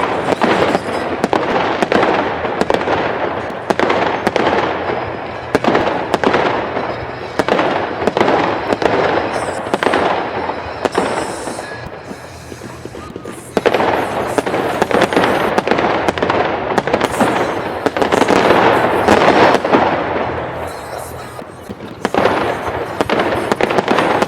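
Fireworks going off in quick succession, dense bangs and crackling that surge and ease in several waves.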